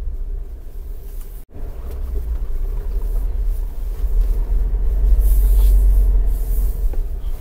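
Low, steady rumble of a car driving, engine and tyres on tarmac, breaking off for an instant about one and a half seconds in and growing louder in the second half.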